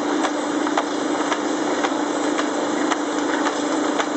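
Srida film laminating machine running steadily, a constant mechanical hum with a sharp regular click about twice a second as the laminated sheets are fed through on the belts and rollers.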